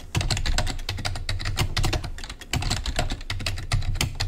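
Fast typing on a computer keyboard: a quick run of keystrokes, many per second, with a dull thud under each. This is a password being typed and entered at the SSH and sudo password prompts.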